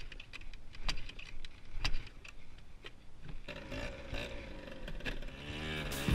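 Small 50 cc ATV engine running under the rider, its hum rising into a wavering engine note from about halfway, with scattered sharp knocks and clicks from the machine bouncing over the rough, icy road.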